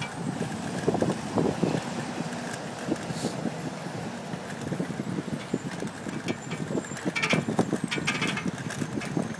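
Rushing wind on the microphone and rattling from a bicycle being ridden along a wet paved cycle path, with uneven knocks throughout and a burst of sharper rattling clicks about seven to eight seconds in.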